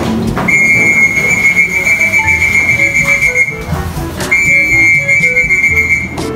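Two long, steady, high whistles, the first about three seconds and the second about two, used to call circling racing pigeons down to land at the loft.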